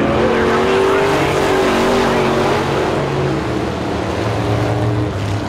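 Several dirt-track pro truck racing engines running hard together as the pack goes round the track. Their notes drop in pitch as trucks go by in the first second, and a lower engine note comes in about halfway through.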